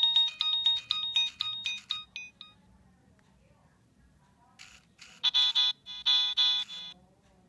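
Nokia 3586 mobile phone ringer playing beeping ringtone melodies. A quick run of notes stops about two and a half seconds in. After a pause and a brief noise, another run of rapid beeps comes from about five to seven seconds.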